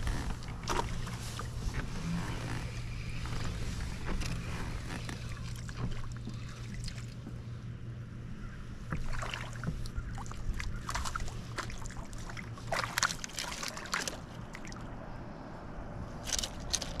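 Scattered light clicks and knocks of a spinning rod, reel and tackle being handled aboard a kayak, over faint water lapping at the hull. A steady low hum runs underneath and stops about thirteen seconds in.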